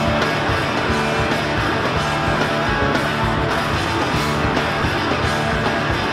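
Loud indie punk rock music with electric guitar, in the opening seconds of the song.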